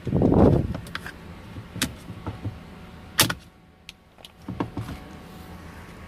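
Short rustle of handling noise, then several sharp plastic clicks and knocks as a replacement turn-signal and wiper combination switch is pushed onto a steering column and snapped into place. The loudest click comes about three seconds in.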